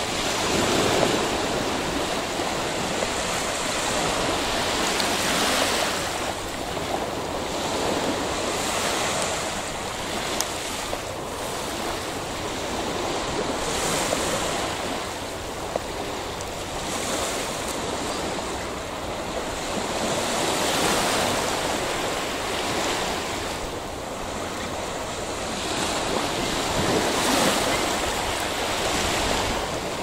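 Sea surf: a steady wash of waves that swells and eases every few seconds.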